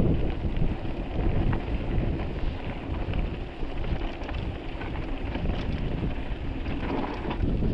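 Wind buffeting an action camera's microphone on a mountain bike rolling fast down a dry dirt trail. The tyres rumble over the dirt, and there are a few short clicks and rattles from the bike.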